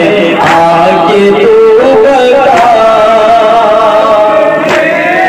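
A man chanting an Urdu noha, a mourning lament, into a microphone, holding long, wavering notes. A sharp beat comes about every two seconds.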